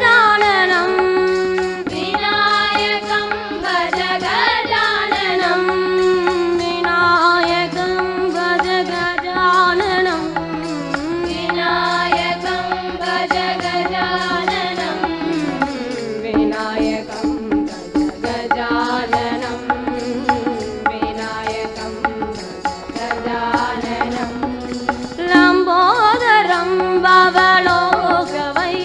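Women singing a devotional bhajan in Carnatic style over a steady held drone note, with hand percussion keeping the beat.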